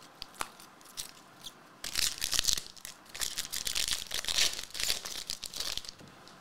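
Foil trading-card pack wrappers being torn open and crinkled by hand: a few small clicks at first, then dense crinkling from about two seconds in.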